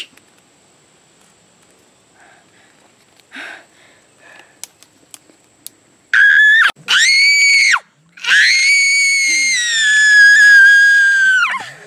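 A few seconds of near silence with faint clicks, then a young person screaming in a very high pitch: two short screams about six and seven seconds in, then one long scream of about three and a half seconds that drops off at the end.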